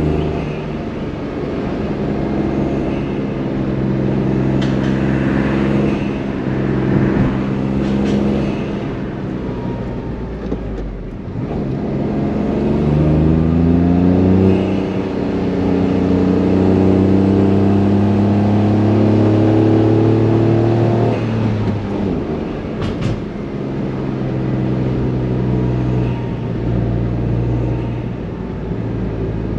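Honda S660's small turbocharged three-cylinder engine and exhaust pulling up a hill pass. The engine pitch holds steady, drops away about eleven seconds in, climbs again as the revs rise, holds, then falls once more a little past the twenty-second mark before settling.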